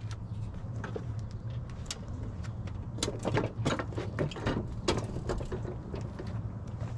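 Clicks and knocks of a push lawn mower being handled and tipped over onto its side, busiest in the middle, over a steady low hum.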